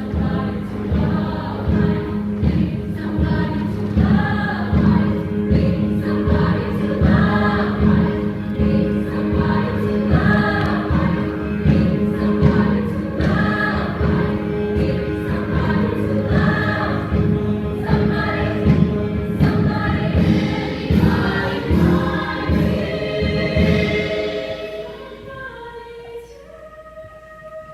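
A choir singing over a loud accompaniment with a steady beat. About three-quarters of the way through the music drops away, leaving a few quieter held notes.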